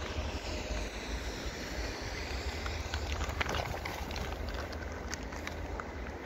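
Low wind rumble on the microphone with scattered crunching steps in snow.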